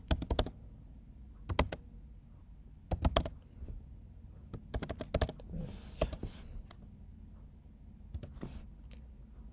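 Typing on a computer keyboard: keystrokes clicking in short, quick runs separated by pauses.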